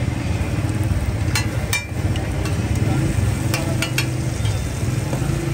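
Mutton liver frying in masala on a tawa, with a metal spatula knocking against the griddle several times near the middle, over a steady low rumble.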